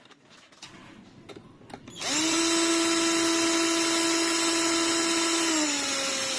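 A few faint handling clicks, then about two seconds in a handheld power drill starts and runs at a steady pitch for about four seconds, its pitch dropping slightly near the end.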